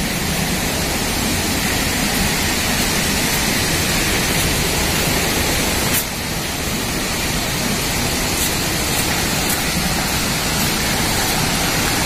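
Steady rushing of falling water from a waterfall close by, dipping briefly about halfway.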